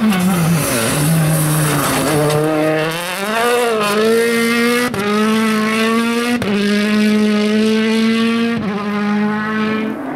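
2017 World Rally Cars' 1.6-litre turbocharged four-cylinder engines revving hard as the cars pass flat out. The note dips, climbs and holds high, breaking off sharply and picking up again a few times at gear changes.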